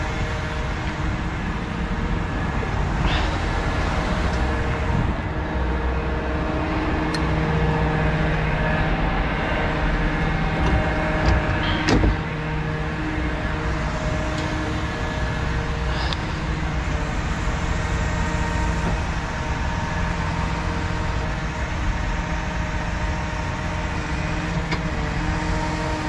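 DAF heavy recovery truck's diesel engine running steadily with the PTO engaged to drive the hydraulic boom and underlift. A few sharp clicks or knocks sound over it, the loudest about twelve seconds in.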